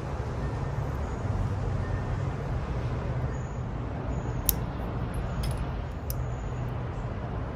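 Steady low rumble of distant traffic. Three or four sharp clicks about halfway through, as bonsai wire cutters snip the wire on a branch.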